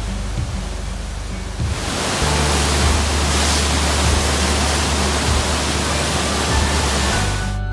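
White water rushing over the Eisbach standing surf wave, a loud steady rush that grows louder and fuller about two seconds in.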